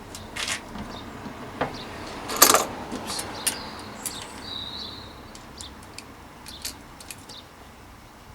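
Cone spanners and small steel hub parts clinking and clicking against each other and the axle while a bicycle front hub's cone and locknut are adjusted. Irregular sharp clinks, the loudest about two and a half seconds in.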